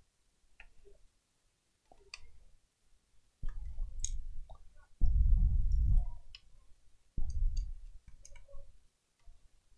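Hands and a screwdriver working screws out of a laptop's plastic underside: scattered sharp clicks of tool and screws on plastic. Three bursts of low rumbling handling noise, each about a second long, are the loudest sounds.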